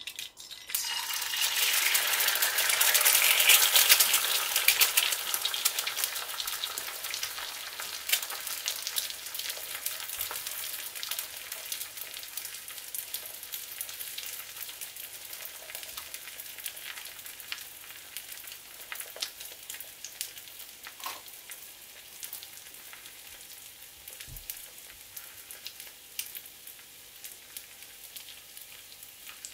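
An egg frying in oil in a small cast-iron skillet. A loud burst of sizzling and crackling starts as the egg hits the hot pan and is loudest a few seconds in. It then eases into a steadily fading sizzle with scattered pops.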